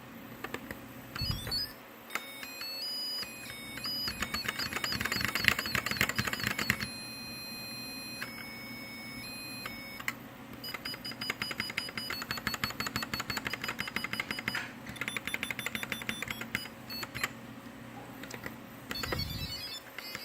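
Planck mechanical keyboard being played: rapid clicking of key switches, with high electronic beeping notes that step from one pitch to another as keys are pressed.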